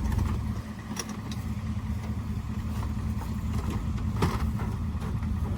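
An engine running steadily with a low rumble, with a couple of faint knocks about a second in and again near the end.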